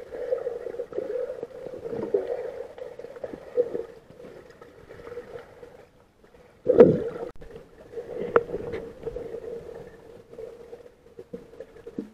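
Underwater sound picked up by a camera below the surface: a steady hum, scattered muffled knocks and bubbling, and one loud burst of water noise about seven seconds in.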